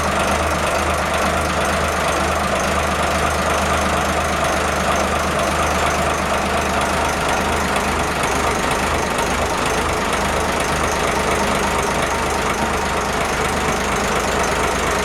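Boat engine idling steadily at an even pitch.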